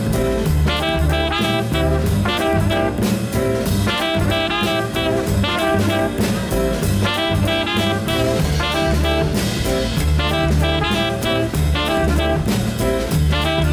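Live jazz band playing: trumpet and saxophone lines over drum kit and upright double bass, with a steady beat.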